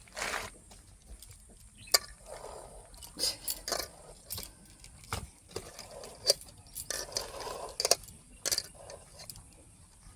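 Irregular metallic clinks and knocks, a few of them sharp and loud, among softer rustling noises.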